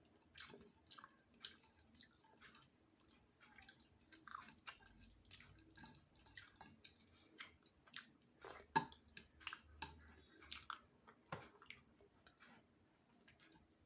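Faint chewing with irregular wet mouth clicks and smacks, a person eating rice and fish.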